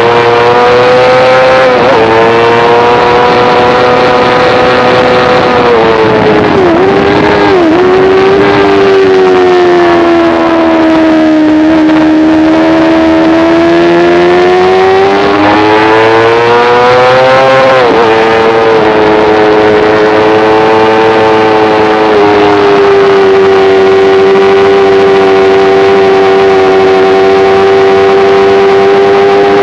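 Motorcycle engine at high revs, heard onboard, its pitch dipping sharply twice about seven seconds in, sagging, then climbing and stepping down at a gear change near eighteen seconds before holding steady.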